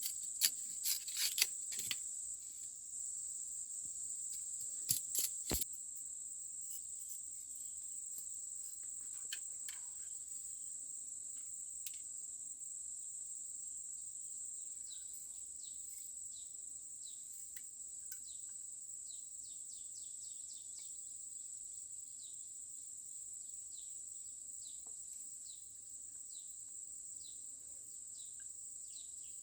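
Insects keep up a steady, high-pitched shrill drone, with a few sharp cracks in the first six seconds and short high chirps later on.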